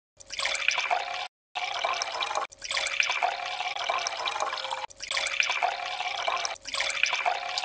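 Water pouring from a plastic mug into the cups of a metal muffin tin, in several stretches separated by abrupt breaks.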